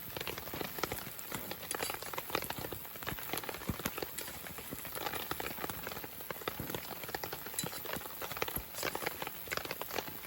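Dense, irregular crackling and popping from a campfire cookout: the wood fire and meat cooking over it, many small pops a second.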